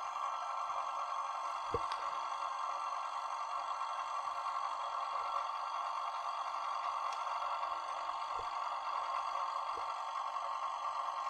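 WIXO air compressor running with a steady hum as it refills its tank, having switched on after the tank pressure fell to 6 atmospheres. A few faint knocks sound over it.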